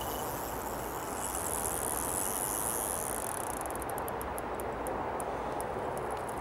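Carp reel clicking in sharp, irregularly spaced ticks from about halfway through while a hooked carp is being played, over a steady hiss of outdoor wind noise. A high, thin buzz runs for a couple of seconds before the clicks.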